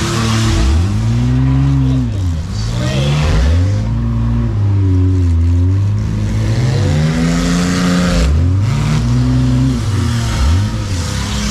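Demolition derby van's engine revving up and dropping back over and over as it is driven hard, the pitch rising and falling every two to three seconds, with a harsh wash of noise over it.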